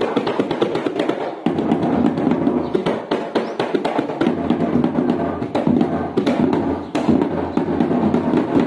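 Balinese gong beleganjur ensemble playing: clashing ceng-ceng hand cymbals and a kendang drum struck with a stick over gongs, a dense run of sharp strikes.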